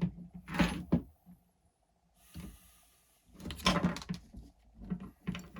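Hard small parts of an RC truck being handled and pushed into place: a few short clattering knocks and clicks about half a second in, then a quiet pause, then another cluster near four seconds.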